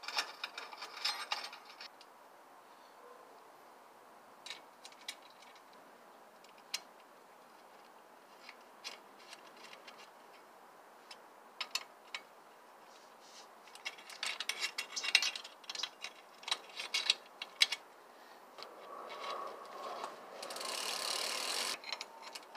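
Bursts of rapid ratcheting clicks from a bicycle's crank and drivetrain and the tools working on them, with scattered single clicks between, a dense run of clicking in the middle, and a steadier whirring stretch near the end.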